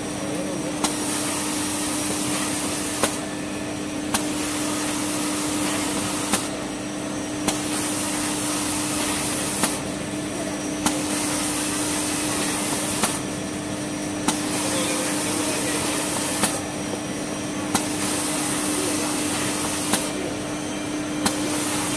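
Automatic maxi-roll tissue paper log saw cutting machine running in a steady repeating cycle of about three seconds, one roll cut per cycle. Under a constant hum, a high hiss cuts out for about a second between two sharp clicks, then comes back.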